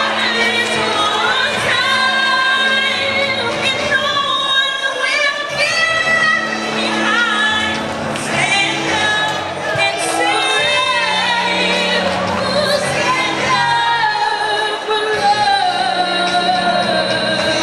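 Two young female singers singing a song into handheld microphones over instrumental accompaniment, with steady low held notes under the sung melody.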